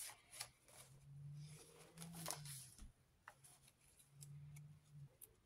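Faint rustling and light handling of thick, layered paper pages as a handmade junk journal's page is turned and smoothed down, with a few soft paper clicks near the start.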